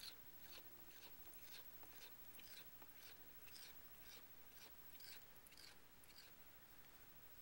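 A cat making a faint, rhythmic, sandpaper-like rasping noise, about two scratchy strokes a second.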